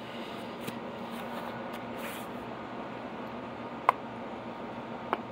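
A small chrome 9/16 socket being handled and set down on a magnetic tool mat, with two sharp metallic clicks near the end, over a steady background hum.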